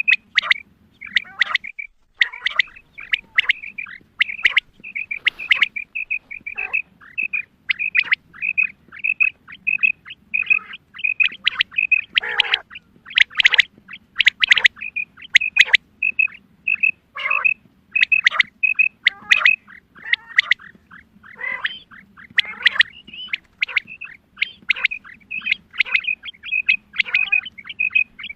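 Female quail calling: a steady string of short, high notes, about two a second, with louder, harsher calls among them.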